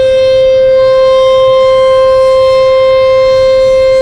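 Sentry 14VB outdoor warning siren sounding, holding one loud, steady tone with strong overtones.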